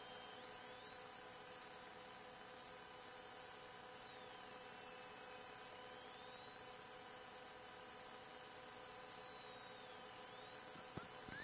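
Faint, steady hiss and hum of a police car's dashcam recording, with a thin high whine that slowly rises, holds and falls several times.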